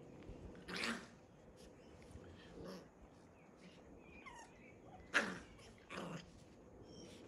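An animal giving four short, hoarse calls, the loudest about five seconds in.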